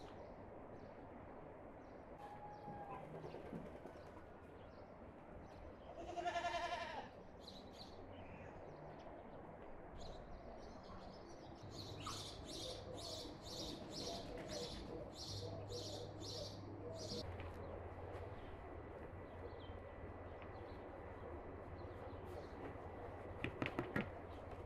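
Rural yard ambience with small birds chirping, and one bleat about a second long around six seconds in. From about twelve to seventeen seconds a bird repeats a high chirp about twice a second. Near the end a few quick knocks as a plastic bowl is handled over an enamel basin.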